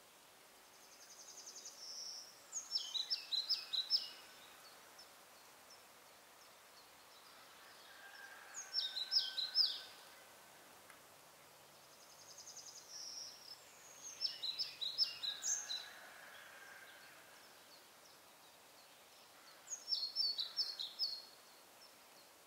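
A songbird singing four short phrases a few seconds apart. Each lasts about two seconds, a high, fast trill leading into a run of sharper, louder notes.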